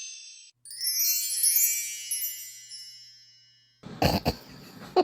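Bright sparkle chime, edited-in sound effect: a cluster of very high bell-like tinkling notes that rings out and slowly fades. A voice starts in near the end.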